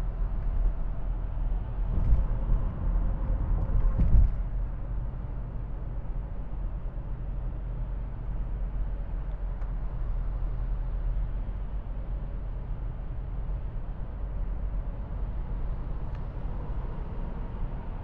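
Steady road and engine rumble heard from inside a car cruising on a highway, with two low thumps about two and four seconds in.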